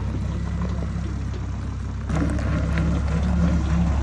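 An engine running steadily, getting louder about halfway through.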